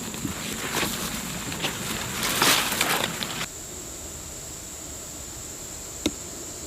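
Rustling and crunching of grass and brush, loudest about two and a half seconds in, that stops abruptly about a second later and leaves a faint steady hiss. A single sharp click comes near the end.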